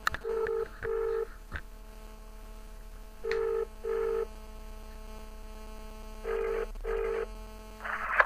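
British telephone ringing tone heard down the line while a call is placed: three double rings, each a pair of short beeps, about three seconds apart, over a faint line hum.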